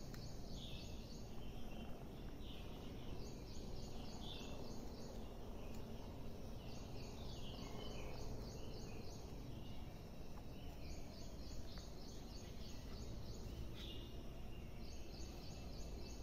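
High-pitched chirping in short, rapid trains that come again and again, over a steady low background hum.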